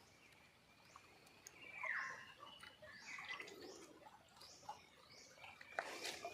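Faint chirping of several small birds: short high calls and quick sweeps, with one louder call falling in pitch about two seconds in.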